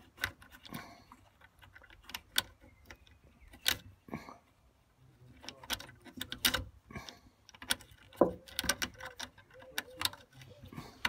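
Irregular small clicks and scrapes of a metal hex key prying and picking at the broken white plastic security disc inside a Ford Focus Mk2 bonnet lock cylinder.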